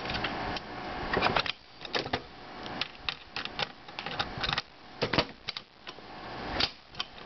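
Small screwdriver turning the screw that holds a hard drive's head assembly: irregular metal clicks and scrapes of the driver working in the screw head.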